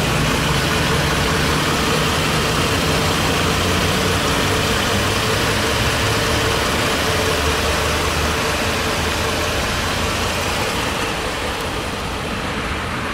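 2015 Ford Explorer's 3.5-litre naturally aspirated V6 idling steadily, heard from beneath the vehicle at the exhaust. It grows a little quieter near the end.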